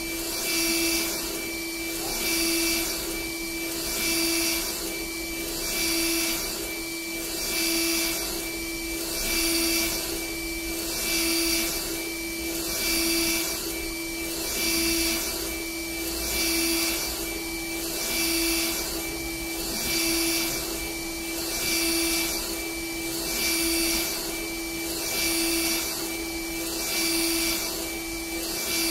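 NC-UV0406 UV flatbed printer running a print: a steady fan-like hum with two constant tones, swelling and fading in a regular rhythm about every 1.7 seconds as the print carriage with its UV lamp sweeps back and forth.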